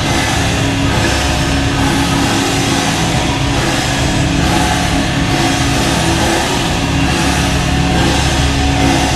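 Hockey goal-celebration song: loud, steady rock music with drums and sustained held notes.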